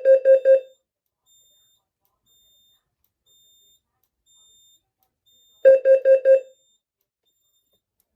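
System Sensor SPSR fire alarm speaker sounding the carbon monoxide temporal-4 tone from a Notifier DVC: two groups of four quick beeps, the second group starting about five and a half seconds after the first. This is the building's carbon monoxide alarm signal.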